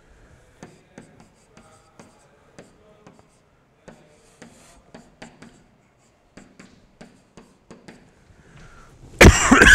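Stylus writing by hand on an interactive screen: a run of faint short taps and scratchy strokes as a line of code is written out. A sudden loud burst of noise cuts in near the end.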